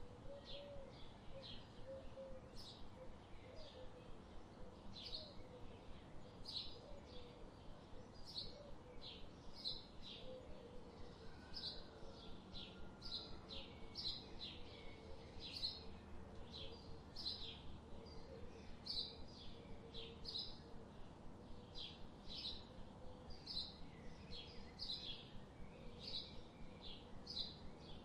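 Forest songbirds chirping: a steady run of short, high chirps, about one to two a second, over faint outdoor background noise.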